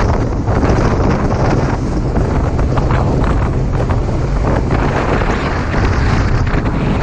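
Loud, steady wind buffeting the microphone of a motorcycle moving at road speed.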